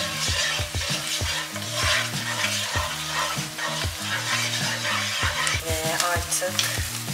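Onions and tomato and pepper paste sizzling in oil in a frying pan, stirred with a wooden spoon that knocks and scrapes against the pan many times. Near the end a bag of frozen spinach is tipped into the pan.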